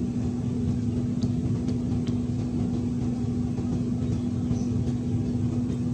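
A steady motor drone with one constant low hum, unchanging throughout, with a few faint ticks over it.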